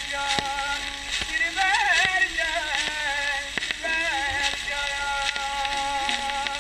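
Early acoustic 78 rpm shellac record of a Persian-Tatar folk song playing: a male voice holds long notes, with a wavering, ornamented run about two seconds in, over steady surface hiss and scattered clicks from the worn disc.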